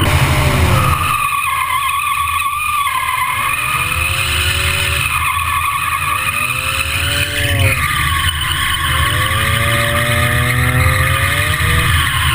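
Mazda Miata four-cylinder engine revving up four times in rising sweeps while its tyres squeal steadily through a long drift slide, over a heavy low rumble of wind on a door-mounted microphone.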